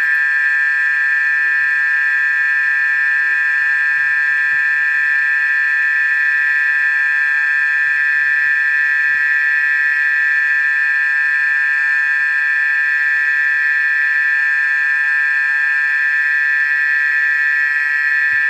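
A loud, steady high-pitched whine that holds one pitch without a break, made of several close tones blended together.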